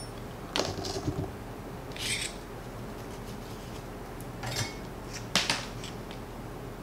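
Hands handling electrical wire and tools on a workbench: a handful of short, scattered clicks and rustles over a faint steady hum.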